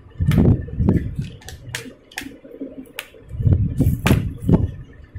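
Plastic screen bezel of an HP Pavilion laptop being pried off the display lid by hand. It gives a string of sharp, irregular clicks as its clips snap free, with dull handling thumps and rubbing in between.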